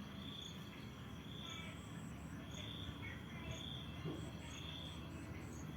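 Insects chirping: a high chirp repeating about once a second, with fainter, higher chirps between, over a low steady background hum.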